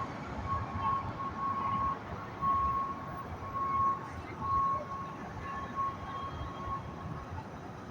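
Street traffic rumbling, with a single high electronic beep sounding on and off over it and stopping about seven seconds in.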